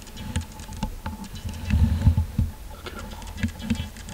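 Camera handling noise: soft rustling with scattered light clicks and dull low thumps as the camera is carried and moved.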